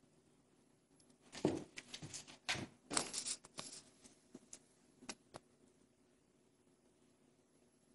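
A kitten getting down from a table onto a tile floor: a thump and a quick run of clicks and scrapes over about two seconds, then a few single light clicks of its paws on the tiles.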